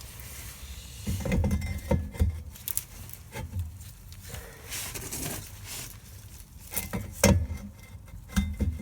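Metal knocks and clinks of a rear brake drum and hub parts being handled and fitted back on. There is a cluster of knocks between one and two seconds in, a sharp knock about three-quarters of the way through, and a few more near the end.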